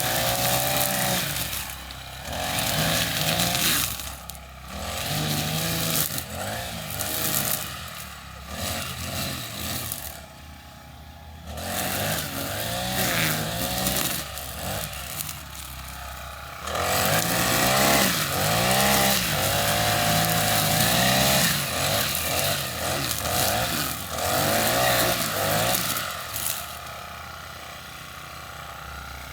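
Petrol lawn mower engine running, its pitch and loudness rising and falling as it works, with quieter dips about ten seconds in and near the end.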